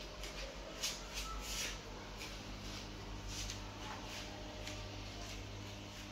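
Soft scuffing footsteps and handling rustle of someone walking with a handheld camera through a small room, a few irregular steps about half a second to a second apart, over a low steady hum.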